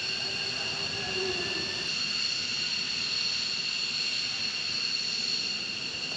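Jet engines running on the flight line: a steady, high-pitched turbine whine of several constant tones over a rushing noise.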